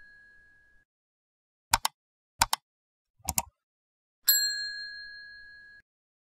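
End-screen sound effects for an animated subscribe-and-like button sequence: three quick double mouse clicks, then a bright ding about four seconds in that rings and fades over about a second and a half.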